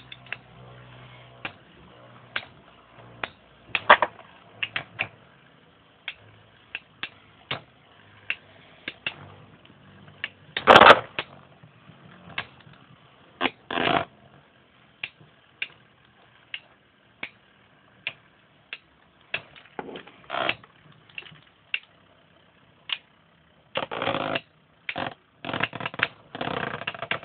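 Two Beyblade spinning tops, Basalt Horogium and Hell Kerbecs, clashing in a plastic stadium: sharp, irregular clacks as they hit each other. One hit about eleven seconds in is especially loud, and a quick run of hits comes near the end.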